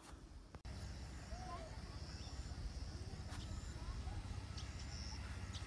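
Open-air ambience: a low wind rumble on the microphone, with a few faint bird chirps.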